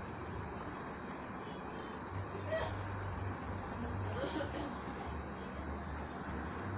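Night-time chorus of crickets and other insects, a steady high shrill, with a low hum that comes and goes underneath and a few faint distant voices.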